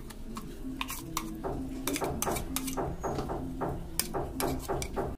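A spoon scraping and knocking thick ground dal batter out of a mixer-grinder jar into a steel bowl: a run of short clinks and scrapes, quickest in the middle, at about four a second.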